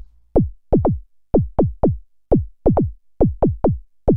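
Moog Rogue monosynth playing a bass drum made from its self-oscillating filter, triggered by a step sequencer: a repeating pattern of short thwacks, about three a second, each a quick downward pitch drop into a low thud.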